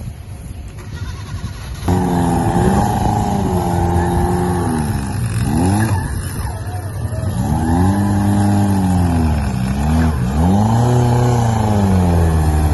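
Off-road 4x4 vehicle's engine revving hard. It cuts in loudly about two seconds in, and its pitch drops and climbs again several times.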